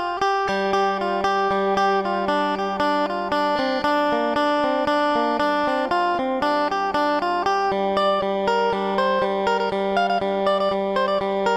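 Background music: a plucked guitar picking an even run of notes, about four a second, over a held low note.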